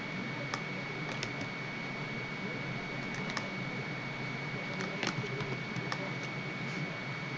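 Scattered light clicks of a computer mouse and keyboard, about a dozen, spread irregularly over steady background hiss with a thin high whine.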